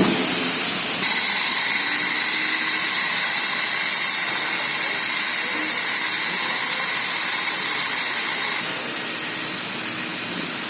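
Loud rush of air from a PLC-controlled pneumatic vacuum machine. It switches on suddenly about a second in, runs steadily as a high-pitched hiss for about seven and a half seconds, and cuts off suddenly.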